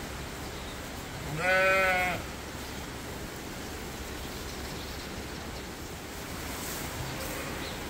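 A sheep bleats once, a single wavering bleat under a second long about a second and a half in, over a steady background hiss.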